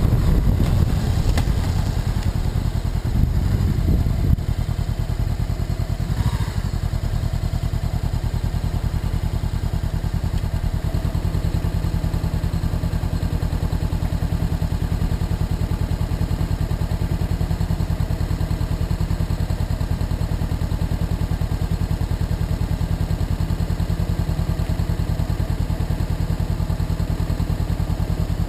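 Motorcycle engine running as the bike rolls to a stop over the first few seconds, then idling steadily with an even, pulsing low beat.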